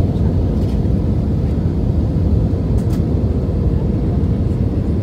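Steady low rumble of an airliner's engines and rushing air heard inside the cabin while it descends on approach with flaps extended, with a faint steady hum underneath.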